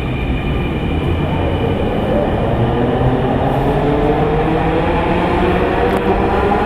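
Dhaka Metro electric train running, with a steady rumble and a motor whine slowly rising in pitch as it picks up speed.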